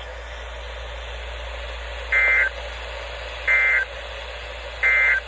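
NOAA Weather Radio's SAME end-of-message code sounding after the Required Weekly Test: three identical short data bursts about a second and a half apart, over steady radio hiss.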